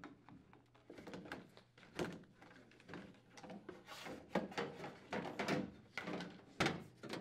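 Plastic refrigerator drain pan being slid in under the refrigerator, with a series of faint knocks, scrapes and clicks as it bumps and slides against the cabinet frame.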